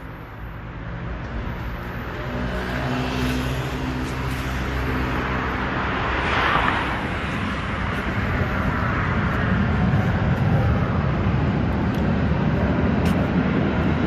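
A motor running with a steady low hum that grows louder over the first few seconds, with a rushing swell about six seconds in.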